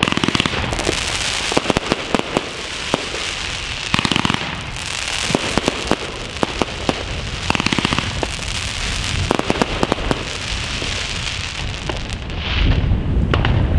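Evolution Fireworks Mega Willow compound cake firing its 30 mm shots in quick succession: a dense run of sharp launch bangs and pops over continuous crackling and fizzing from the bursting breaks. A louder low rumble builds near the end.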